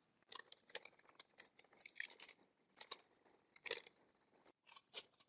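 Faint, irregular metal clicks and small rattles of hand work on a CNC mill's ball nut mounting flange and its screws, with a brief pause near the end.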